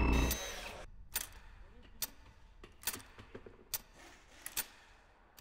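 A loud rushing swell that dies away within the first second, then a run of sharp, single clicks at uneven spacing, about one every half second to a second.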